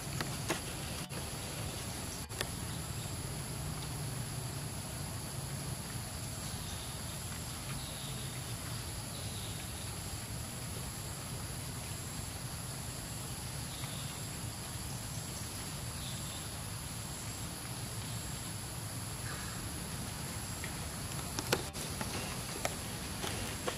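Outdoor ambience: a steady high insect drone over a low even rumble, with a few faint short chirps and a couple of light clicks near the end.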